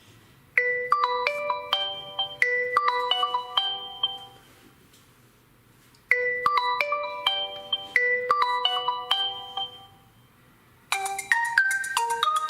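Oppo A1K stock ringtone: a short, quick melody of pitched notes, played twice with a pause of about a second and a half between. A different, brighter ringtone melody starts near the end.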